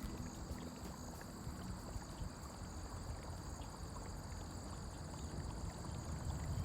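Outdoor ambience: a steady high-pitched insect chorus, like crickets, over a low rumbling noise.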